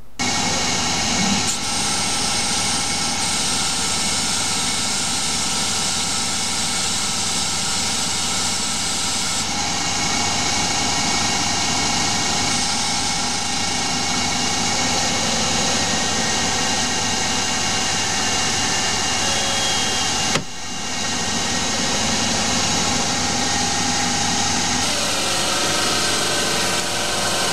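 Small Hercus CNC lathe boring a large bore in a 2011 aluminium blank: the spindle motor and cutting tool run steadily under heavy cut, with a hiss from the mist coolant spray. The sound briefly dips about twenty seconds in.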